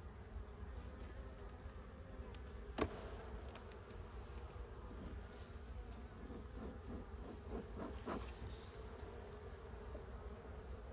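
Honey bees buzzing steadily around an open hive, with a few louder passes of bees close by about six to eight seconds in. A single sharp click about three seconds in.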